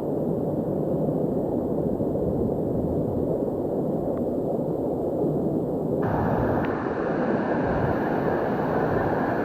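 Waterfall rushing steadily, a dense wash of falling water. About six seconds in the sound changes abruptly and becomes a little brighter and hissier.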